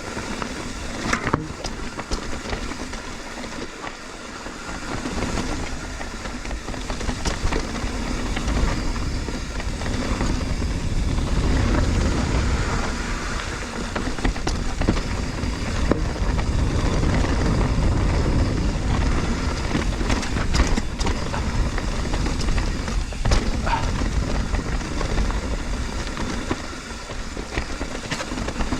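Mountain bike riding down a rough, rocky trail: tyres rumbling over rock and roots with the bike rattling and knocking over drops. The rumble grows louder a few seconds in as speed builds.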